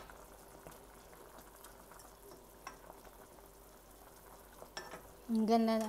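Chicken adobo simmering faintly in a stainless steel pot while a plastic spatula stirs it, with a few light clicks of the spatula against the pot.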